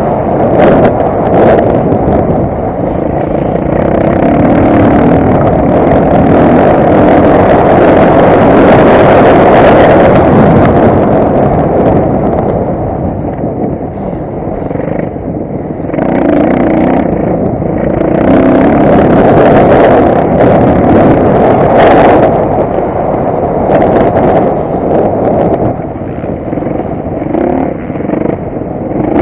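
Motocross motorcycle engine running hard under race throttle. It eases off twice, about halfway through and again near the end, then picks back up.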